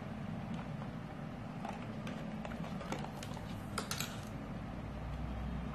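A few light clicks and taps from the DC adapter being connected to a bare laptop motherboard, mostly between about one and a half and four and a half seconds in, over a steady low hum.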